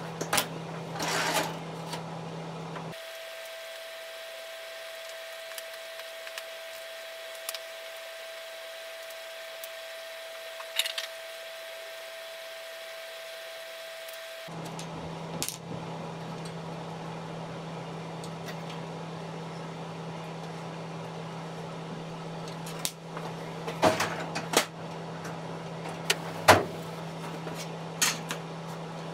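Workbench handling sounds: scattered light clicks and knocks of hand tools and copper pieces over a steady low hum, with a few sharp, louder clips near the end as a copper sheet is cut with hand shears.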